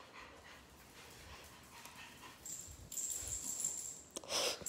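A puppy whimpering softly. A high-pitched steady whine comes in about halfway through, and there is a short louder sound near the end.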